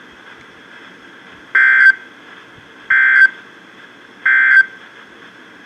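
Three short bursts of Emergency Alert System SAME data tones from a NOAA Weather Radio broadcast, the end-of-message code closing the warning, about 1.3 s apart over a faint radio hiss.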